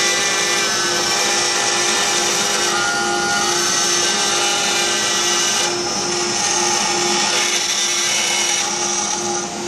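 CNC router spindle running with an end mill cutting a profile through a wooden board: a steady whine over the noise of the cut, dipping briefly near the end.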